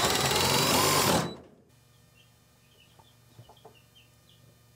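Cordless drill running hard as a long drill bit bores through a wall, stopping about a second and a half in. Afterwards, faint short bird chirps.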